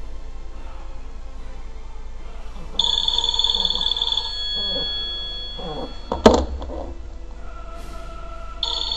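Mobile phone ringing with an incoming call, the call set off remotely by the alarm trigger device. The ring sounds for about a second and a half, pauses, and starts again near the end. A single sharp knock about six seconds in is the loudest sound.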